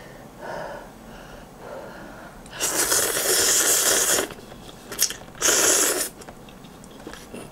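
A person slurping spicy instant ramen noodles: one long, loud slurp about two and a half seconds in and a shorter one near six seconds.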